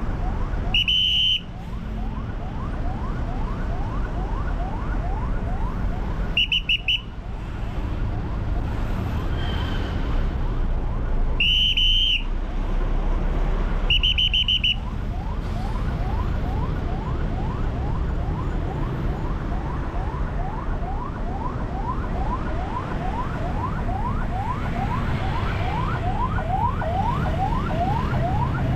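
Ambulance siren yelping in quick rising sweeps, about three a second, over the low rumble of idling traffic. Short, high-pitched vehicle horn beeps cut in four times, the loudest sounds here.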